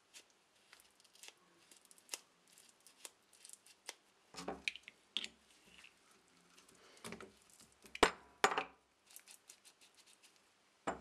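Small irregular clicks and clinks of metal and plastic parts being handled as a Shimano DX PD-M647 clipless pedal is put back together, with a few louder clacks midway.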